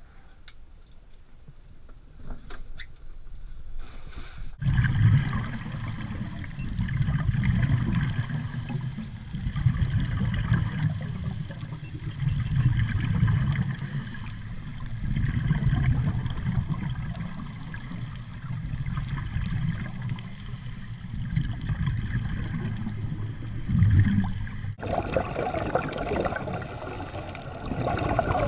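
Underwater sound picked up by a camera in its housing: a muffled low rumble with bubbling and gurgling from scuba divers' exhaled bubbles, swelling and fading every few seconds. It starts abruptly a few seconds in, after a short stretch of faint sound, and changes abruptly to a brighter hiss near the end.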